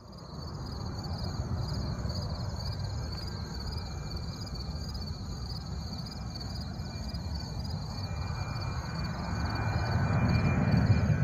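Jet engines of a twin-engine airliner flying low overhead: a distant low rumble that grows louder over the last couple of seconds. A high, evenly pulsing chirp sits above it.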